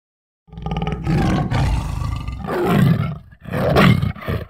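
Tiger roaring: a string of rough roars that starts about half a second in, with a brief pause before a final roar near the end.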